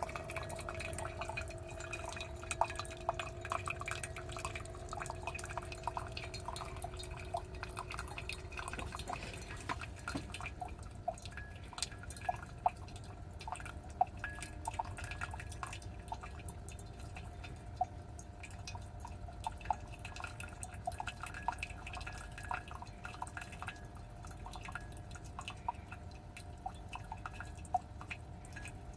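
Chefman single-serve coffee maker running its first cleaning cycle with plain hot water, irregular drips falling into a cup. A steady hum runs under the drips and stops about nine seconds in.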